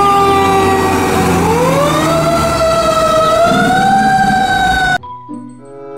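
Fire truck siren wailing over a low engine rumble: the pitch sags slowly, climbs again about a second and a half in and holds high. It cuts off abruptly near the end.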